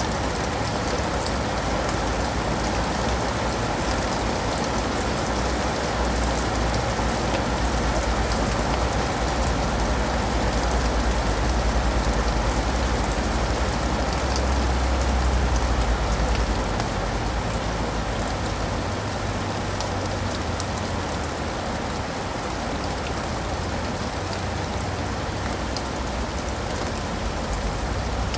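Steady rain falling, with a low rumble underneath that fades out a little past halfway.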